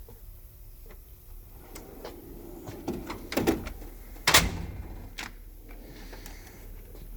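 Snap-on EPIQ toolbox drawer sliding along its runners, then shutting with one loud metal bang about four seconds in, with small clicks and rattles of tools around it.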